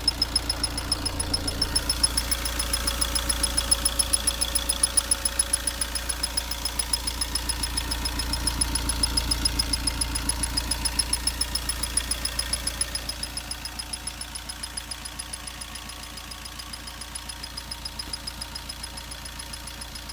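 Fiat Linea 1.3 Multijet four-cylinder diesel engine idling with a rapid, regular ticking knock over its running, an unusual engine noise in the owner's words. It gets somewhat quieter about thirteen seconds in.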